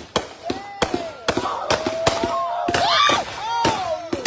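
Firecrackers going off in an irregular string of about ten sharp bangs, with shouting voices between them.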